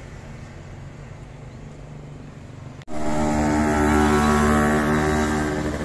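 Steady low roadside traffic rumble that cuts off abruptly about three seconds in. A louder, steady pitched drone of a nearby vehicle follows and eases off slightly near the end.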